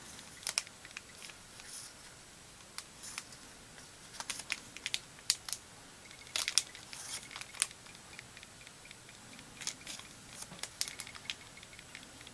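Small card gift tags being handled and slid out of a paper envelope: quiet, scattered light clicks, taps and rustles of card and paper.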